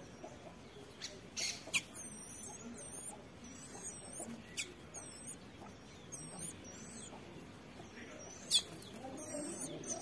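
Small birds chirping: short, high, wavy notes repeated every second or so, with a few sharper downward-sweeping calls, the loudest about a third of the way in and again near the end.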